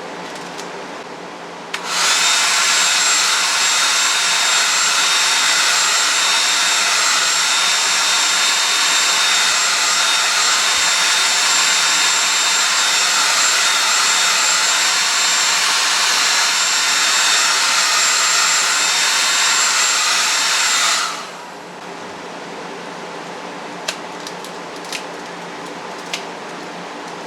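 Small handheld hair dryer switched on about two seconds in, blowing steadily with a high whine, then switched off near the end; a few faint ticks follow.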